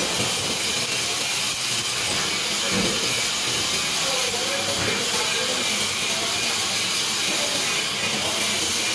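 Stick (shielded metal) arc welding arc burning continuously, a steady frying hiss and crackle with no breaks, as when running a weld bead such as a root pass.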